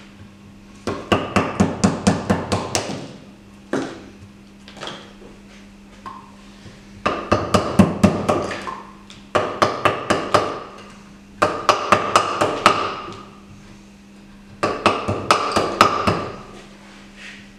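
Wooden mallet striking a steel chisel to chip away a plaster waste mold from a cast, in quick runs of about five blows a second, each run lasting one to two seconds, with a few single blows between runs.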